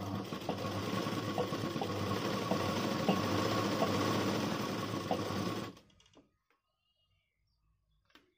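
Sewing machine running steadily as it stitches through satin fabric, stopping suddenly about two-thirds of the way through.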